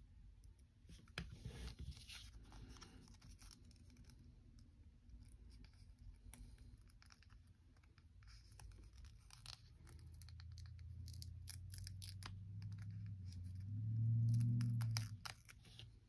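Light scratching, tearing and clicking from small hands-on work, most likely Beyblade stickers being peeled from their sheet and pressed onto the plastic parts. A low hum builds through the second half, is loudest near the end and then stops suddenly.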